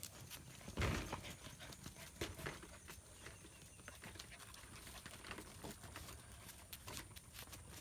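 German Shepherd puppies' paws and claws clicking and scuffing on a concrete patio as they scamper and play: faint, irregular taps, with one louder knock about a second in.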